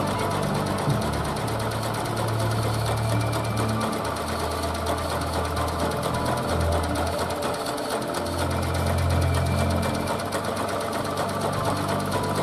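Delzer small single-cylinder petrol engine running steadily and driving a homemade generator by belt. Its low note shifts up and down every few seconds.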